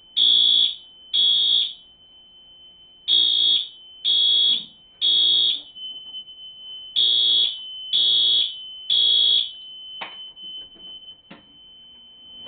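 Fire alarm horn sounding in the temporal-three evacuation pattern, set off by a pulled manual pull station: half-second blasts in threes with a longer pause between each group, under a thin steady high tone. About ten seconds in there are a couple of clicks and the horns stop as the system is silenced.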